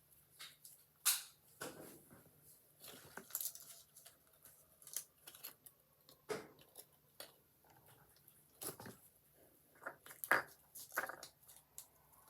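Slime being pressed and worked by hand into plastic cupcake tins: irregular sticky squishes, taps and clicks, with brief pauses between them.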